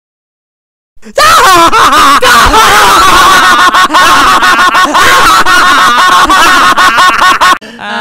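A gloating evil laugh: very loud, distorted cackling with a wavering pitch. It starts about a second in after dead silence and cuts off abruptly near the end.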